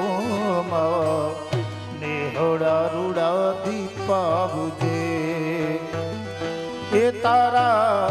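Gujarati devotional folk song performed live: a voice sings a long, wavering, ornamented melodic line over steady harmonium chords, with a dhol keeping a repeating beat.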